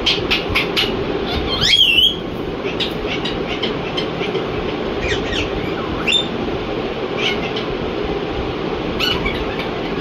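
Indian ringneck parakeet calling: a quick run of short chirps, then one louder sweeping squawk just before two seconds in, then single short chirps every second or so. A steady droning hum runs underneath.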